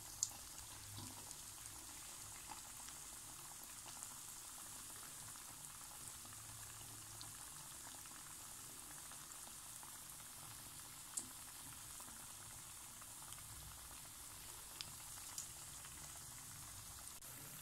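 Potato rings deep-frying in hot ghee over medium heat: a steady, faint sizzle of bubbling fat, with a few sharp ticks scattered through.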